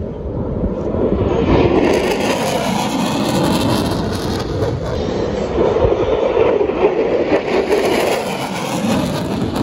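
Military fighter jet flying low past the crowd: a loud, steady jet-engine roar that swells about a second in.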